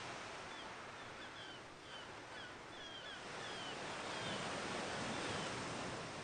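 Sea waves washing and breaking in a steady surf noise that swells about four seconds in. Short, high, falling chirps repeat over it through the first half.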